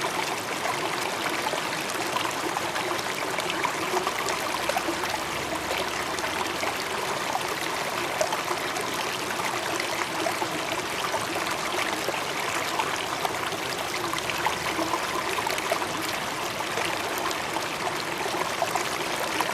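Running water of a stream, a steady babble with small splashes and trickles throughout.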